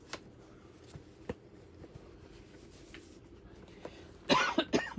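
Quiet handling of paper and a cardboard box: a few light clicks and taps, with a short burst of voice near the end.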